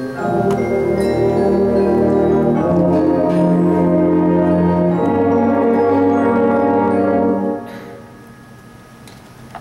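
Symphonic concert band playing loud held chords, brass to the fore, the harmony shifting twice. Near the end the band breaks off and the sound drops to a much quieter level.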